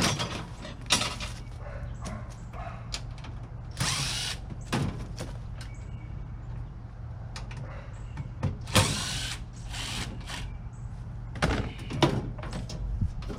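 A power drill running in two short bursts, about four and nine seconds in, backing screws out of a microwave's sheet-metal shell. Scattered sharp metallic knocks come between the bursts.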